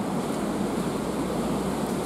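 Steady rain falling in a city, an even hiss. A low rumble joins underneath shortly after the start.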